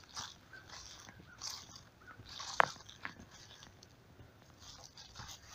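Footsteps crunching through dry fallen leaves, a soft irregular rustling crunch with each step, and one sharp click about halfway through.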